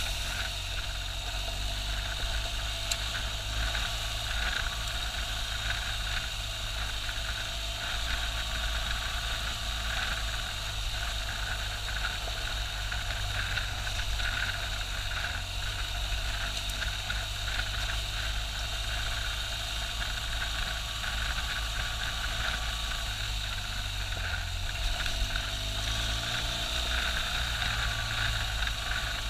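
BMW R1200GS boxer-twin engine running steadily at an even pace while riding a dirt track, with tyre and wind noise under it; the engine note shifts a little near the end.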